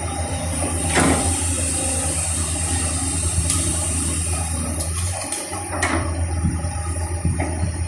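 Diesel engine of a clamshell-grab excavator running steadily, with a high hiss over it and a few sharp knocks and clanks, the loudest about a second in and near the middle.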